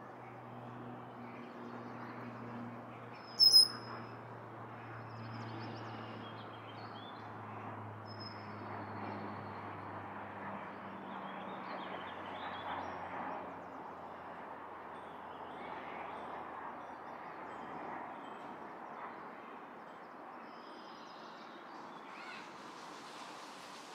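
Scattered short, high bird chirps over a steady background hiss, with one loud, sharp chirp about three and a half seconds in. A low hum fades out around the middle.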